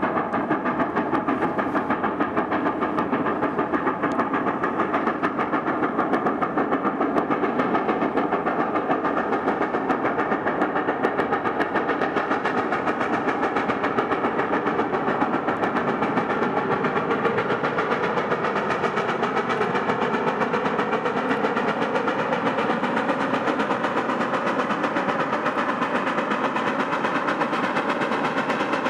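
Western Maryland Scenic Railroad's 2-8-0 steam locomotive No. 734 working hard with a freight train. Its exhaust comes as a rapid, even string of beats that runs without a break.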